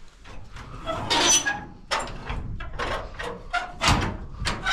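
Corrugated sheet-metal shed door being opened: a scrape about a second in, then several knocks and rattles.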